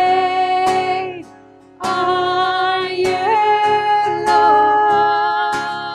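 Women's voices singing long held notes of a contemporary worship song over an acoustic guitar, with a brief break about a second in before the singing resumes.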